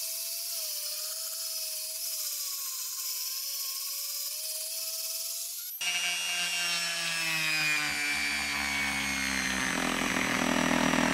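Handheld rotary tool running with a steady, slightly wavering whine as its small bit works over a brass plate. About six seconds in, the sound changes abruptly: louder, its pitch falling over several seconds as a felt polishing bit is pressed into a bar of green polishing compound.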